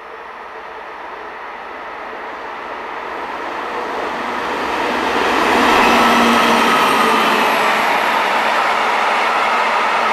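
Russian-built DB 'Ludmilla' diesel locomotive (class 232 family) approaching and passing with a train of hopper wagons. Engine and wheel noise grow steadily louder, peak as the locomotive goes by about six seconds in, then the wagons keep rolling past loudly.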